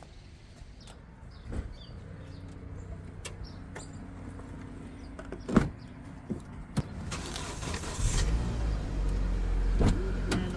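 Car door latch clicking as the door is pulled open, then a Hyundai car's engine starting about eight seconds in and running with a steady low rumble.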